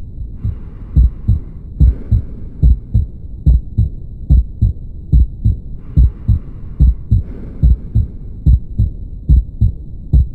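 Recorded heart sounds: a fast, steady heartbeat of low thumps, with a hissing noise laid over it twice for just over a second, about half a second in and again about six seconds in.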